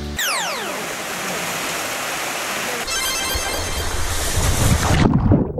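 A falling whistle sound effect, then steady rushing stream water. It grows louder, with heavy splashing near the end, where the sound suddenly turns muffled.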